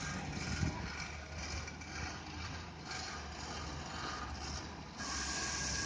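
Steady mechanical and vehicle noise, with a low hum under a noisy wash. About five seconds in it grows louder and hissier.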